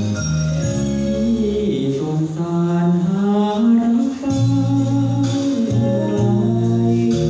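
A man singing a Thai song into a handheld microphone over backing music with a steady beat, holding long notes that bend in pitch.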